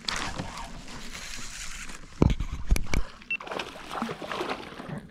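Water splashing and sloshing beside a kayak as a hooked black bass is fought in to the boat, with a few heavy thumps about halfway through.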